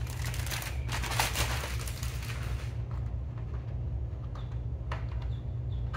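Clear plastic packaging bag crinkling as it is handled and pulled off a part, for about the first two and a half seconds, then a few light handling clicks over a low steady hum.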